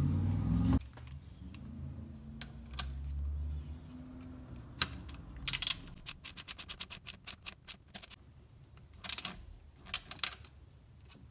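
Ratchet wrench clicking quickly, about ten clicks a second for roughly two seconds, as it tightens the positive terminal nut of a 12-volt auxiliary battery. A few separate metallic clicks from the tool and terminal come before and after.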